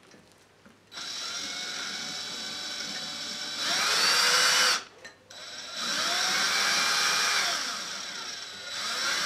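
DeWalt cordless drill driving a self-drilling screw into the lamp's steel bar. The motor starts about a second in and grows louder before a brief stop near the middle. It then runs again for about three seconds, easing off near the end, and gives one more short run.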